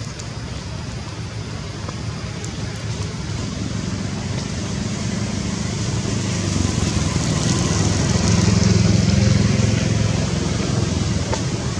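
A motor vehicle's engine humming steadily in the background, growing louder to a peak about nine seconds in and then easing off.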